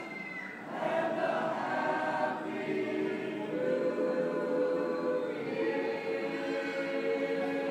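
Men's chorus singing a cappella in close harmony, holding sustained chords. The singing drops briefly just after the start, then picks up again about a second in.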